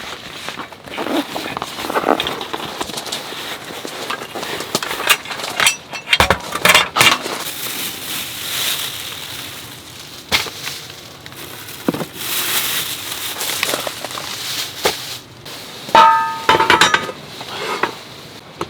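A run of irregular knocks, clicks and clinks, as of camping gear and dishes being handled, over rushing noise that swells and fades like strong wind gusting on the microphone. A short ringing clink stands out about sixteen seconds in.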